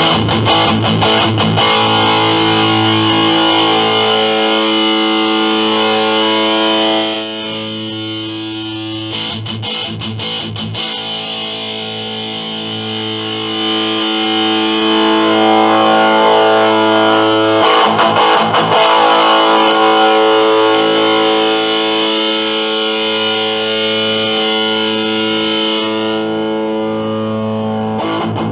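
Electric guitar played through a Digitech Death Metal distortion pedal into a Squier 1x8-inch practice amp: heavily distorted chords left to ring, with quicker picked passages about a second in, around nine to eleven seconds in, and again near eighteen seconds. The low end is thin, which the player puts down to the small 8-inch speaker.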